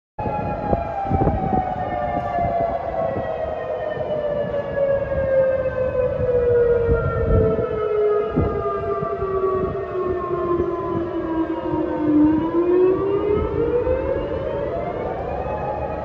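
Outdoor tornado warning siren wailing: one long tone that slowly falls in pitch for about twelve seconds, then rises again near the end.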